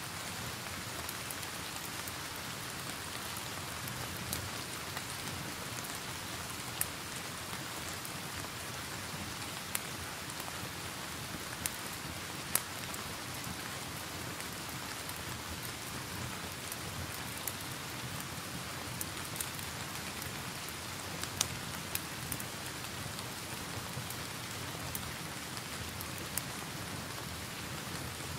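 Steady, dense rain with scattered sharp pops and crackles from a log fire mixed in, a dozen or so through the stretch.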